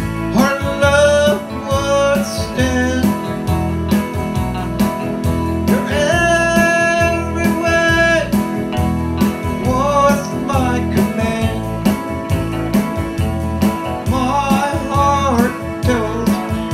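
Live country music: a man's singing voice with an electronic keyboard and an electric guitar played through a small amplifier. The vocal comes in a few separate phrases over steady playing.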